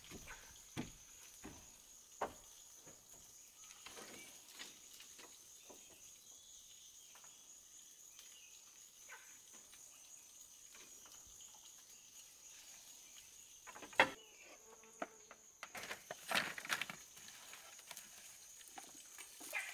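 Insects, crickets or cicadas, trilling in a steady high, finely pulsing drone. Over it come scattered faint rustles and light knocks, with one sharp knock about fourteen seconds in and a short run of clatter soon after.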